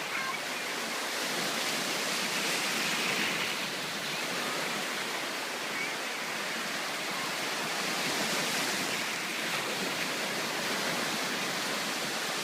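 Sea surf washing ashore in a steady rush that swells and eases every five or six seconds.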